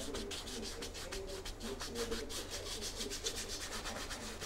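A 2.5-inch painting brush loaded with oil paint scrubbing back and forth across a canvas, a dry scratchy rasp repeating several times a second.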